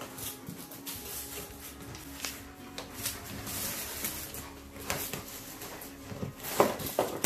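Dog working at a small cardboard box with its mouth and nose: scattered scrapes and rubs of cardboard, the loudest a little over halfway through and near the end.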